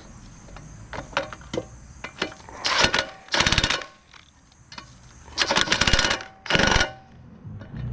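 A power wrench rattling in four short bursts, two about three seconds in and two more a couple of seconds later, as fasteners are run in on the Walker mower's blower fan housing; a few light tool clicks come before them.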